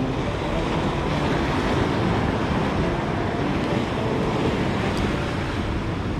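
Surf breaking and washing against rocks and a concrete sea wall, with wind buffeting the microphone.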